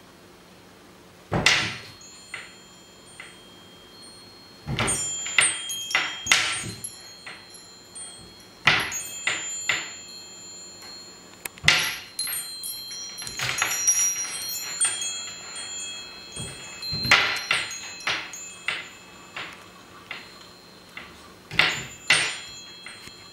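Metal wind bell being batted by a kitten: irregular strikes in uneven clusters, the first about a second and a half in, each leaving high ringing tones that linger between hits.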